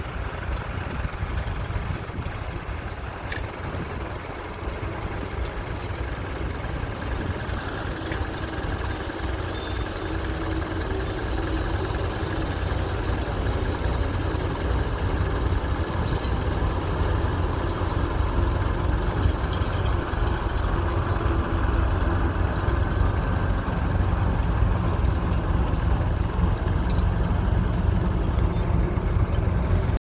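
1959 McCormick International Harvester B275's 2.3-litre four-cylinder diesel engine running steadily under load while pulling a plough through the soil, slowly growing louder.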